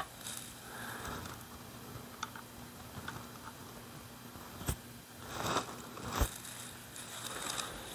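Quiet handling of a pump-action .22 rifle on a rubber bench mat: soft rubbing and shuffling, with two sharp clicks in the second half.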